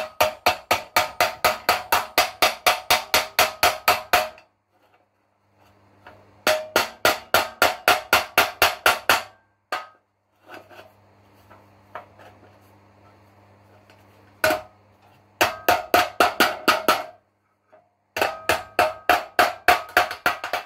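Rapid hammer blows on a sheet-steel seat box panel, about four to five a second, in four runs with short pauses between. Each blow rings metallically as the edge is knocked down into a recess to form a raised lip. A low steady hum sounds in the pauses.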